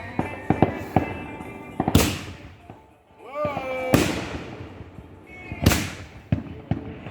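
Backyard fireworks going off: a few small pops early on, then three loud bangs about two seconds apart, each trailing off as it fades.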